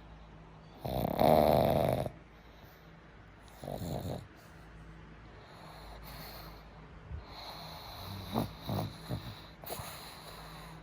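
A dog snoring in its sleep: one loud snore lasting about a second, starting about a second in, a quieter one a few seconds later, and a few short snores near the end.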